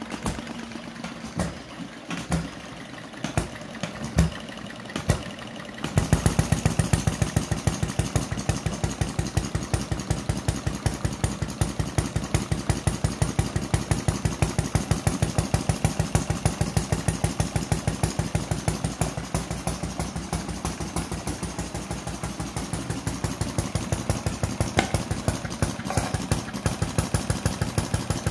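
Miniature four-stroke model stationary engine with battery-and-coil spark ignition: a few scattered pops, then about six seconds in it catches and runs with a fast, even firing beat.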